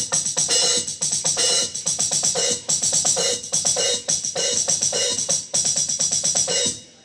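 Alesis Surge Mesh electronic drum kit played in a busy drum groove: fast snare and kick hits under steady hi-hat and cymbal sounds from the kit's module. The playing stops just before the end.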